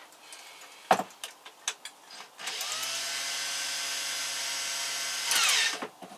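A hand-held power drill spins up, runs steadily for about three seconds, gets briefly louder and then winds down and stops. A few light clicks come about a second in, before the motor starts.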